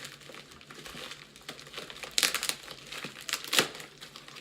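Packaging on a CPU cooler's box being ripped open and crinkled by hand: irregular crackling with two louder rips, about two seconds in and again about three and a half seconds in.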